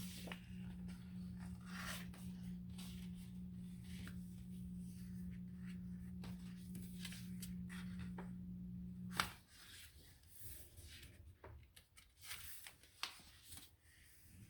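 Pages of a sticker book being turned and handled: soft paper rustles, rubs and light clicks. A steady low hum runs under them and cuts off with a sharp click about nine seconds in.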